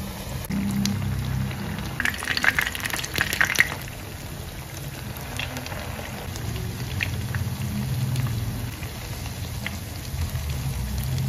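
Background music with low held notes, over a crackling sizzle of cooking that is loudest about two to four seconds in.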